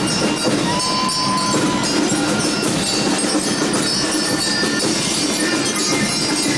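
Street parade sound: music and crowd noise, with the hooves and jingling harness of draught horses pulling a wagon past.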